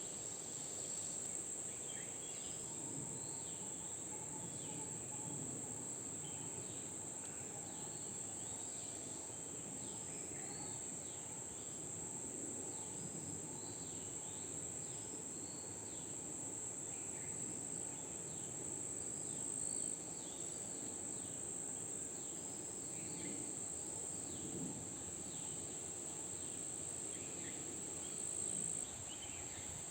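Insects trilling in one steady, unbroken high-pitched drone, with many short falling bird chirps scattered throughout.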